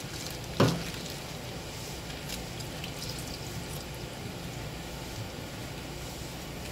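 Scissors snipping spoon worms over a stainless-steel sink: a few faint, short clicks over steady background noise, with one loud sharp knock about half a second in.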